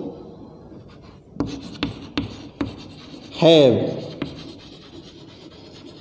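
Chalk writing on a chalkboard: scratchy strokes with several sharp taps as the chalk strikes the board.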